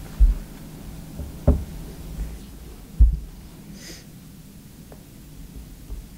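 Quiet room tone broken by three dull low thumps, about a quarter second, a second and a half and three seconds in, the last the loudest, with a short soft hiss just before four seconds in.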